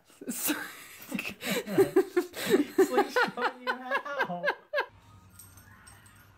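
A baby laughing: a quick run of high, repeated giggles that stops about five seconds in, after which only faint room sound remains.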